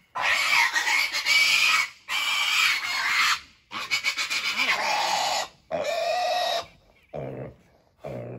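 Piglet squealing in four long, shrill screams of one to two seconds each while held upside down for castration. Near the end the cries turn into shorter, quieter, lower sounds.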